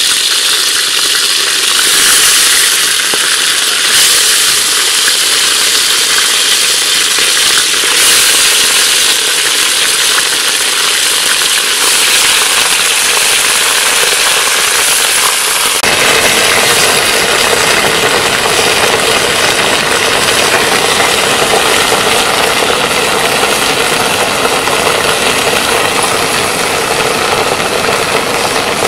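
Buffalo meat frying in hot oil in an aluminium pot: a loud, continuous sizzle and crackle. About halfway through the sound turns fuller and steadier, with a low hum under the hiss.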